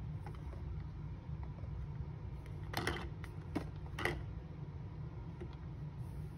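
Small capped medicine bottles being picked up, shifted and set down on a granite countertop: a short rattle of knocks about three seconds in, then single knocks about half a second and a second later. A steady low hum runs underneath.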